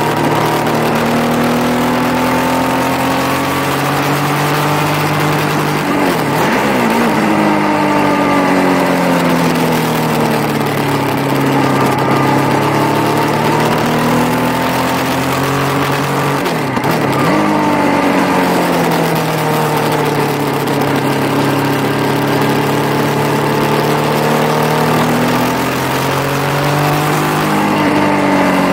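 Yamaha motorcycle engine at speed on track, its pitch sinking and climbing several times as the rider rolls off into corners and accelerates out, with abrupt gear changes about six seconds in and again near the middle. A steady rush of wind runs under the engine.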